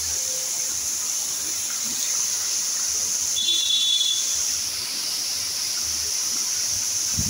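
Fountain jets spraying and the water falling back, a steady high hiss. A brief high whistling tone sounds about three and a half seconds in.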